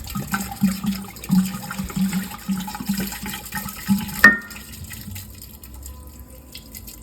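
Sangria mixer glugging out of a bottle into a pitcher of cut fruit, in regular gulps two or three times a second, followed about four seconds in by a single sharp clink.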